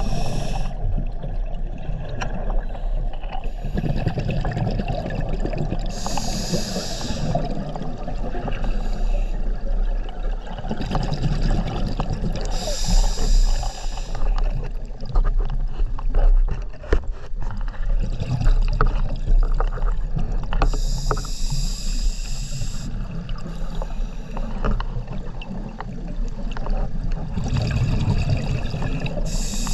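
Scuba diver breathing through a regulator, heard underwater through a GoPro housing: a hissing rush of exhaled bubbles every six to eight seconds over a steady low rumble of water.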